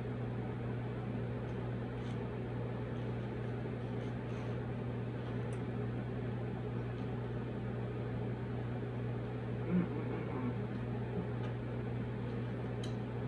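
Steady low hum of room background noise, with a few faint clicks of a fork against a foam takeout container and quiet eating sounds as she eats rice.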